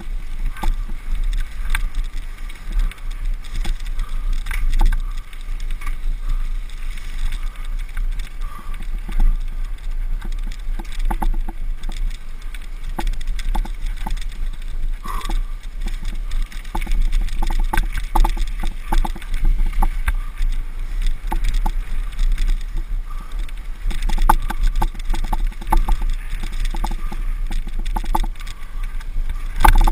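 Bicycle riding over a rough, muddy dirt trail: steady wind rumble on the action camera's microphone and tyre noise, with many short rattles and clicks from the bike jolting over bumps, more frequent from about halfway on.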